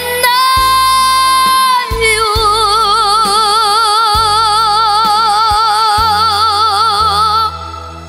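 A young girl's solo voice singing the end of a trot song over backing music: a held note, then a long final note with wide, even vibrato that stops about seven and a half seconds in, leaving the accompaniment.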